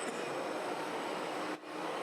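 Steady mechanical running noise with faint steady whines, as from RC model construction machines and trucks at work. It drops out briefly about one and a half seconds in.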